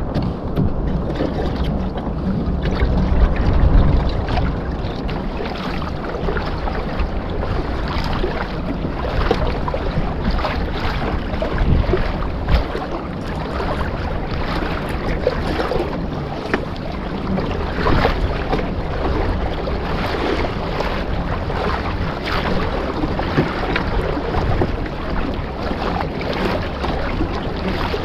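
Water slapping and splashing against a fishing kayak's hull, with wind buffeting the microphone.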